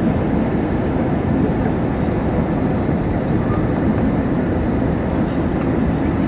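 Steady cabin noise of an airliner on approach to landing: jet engines and airflow heard from inside the cabin, a constant low rush with a faint high whine over it.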